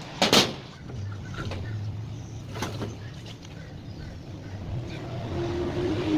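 Sharp knocks of parts being handled during a dryer repair, the loudest just under half a second in and another a little past halfway. Near the end a steady motor tone starts and grows louder.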